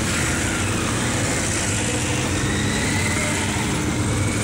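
Several motorcycle engines running at low speed as the bikes ride past close by, a steady low engine hum.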